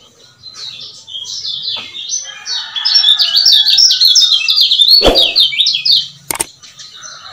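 A kecial kuning (Lombok white-eye) giving a fast, chattering run of sharp, falling 'ciak' chirps, the male's excited call used to provoke other birds into singing. One dull knock sounds about five seconds in.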